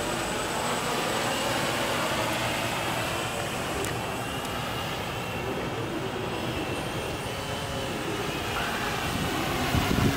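jDrones HexaMapper hexacopter in flight, its six electric motors and propellers giving a steady whirring drone with a faint whine that wavers slightly in pitch.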